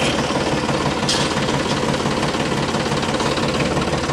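Diesel tractor engine idling steadily with an even, rapid chugging knock.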